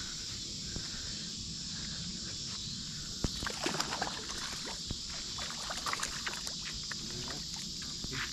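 Quiet riverbank ambience: a steady high hiss with a run of light clicks and taps a few seconds in.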